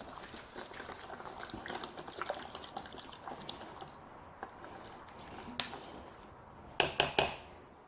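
Water pouring into a pot with a trickling, dripping sound for the first few seconds. Near the end there is a quick cluster of sharp knocks.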